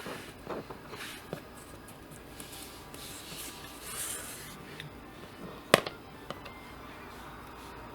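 White cardstock die cuts being handled and small cut pieces worked loose from the letters: light rustling and scratching of paper. One sharp click a little before six seconds in.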